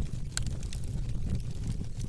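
A fire crackling, with scattered sharp pops and snaps, the clearest about half a second in, over a steady low rumble of the flames.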